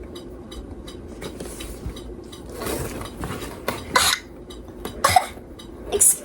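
Items being handled and unpacked from a box: light clicks and knocks throughout, with a few louder short rustling scrapes about three, four, five and six seconds in.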